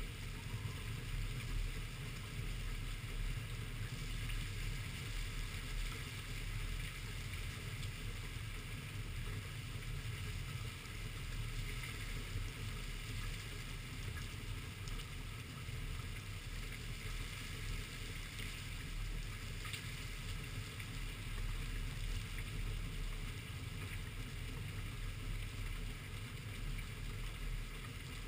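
Rainstorm: steady rain falling, with a low rumble of wind on the microphone and a few faint ticks of drops striking close by.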